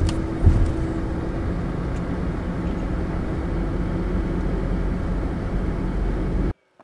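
Hurricane-force wind gusting, rumbling steadily on the microphone with a faint steady hum underneath. It cuts off suddenly near the end.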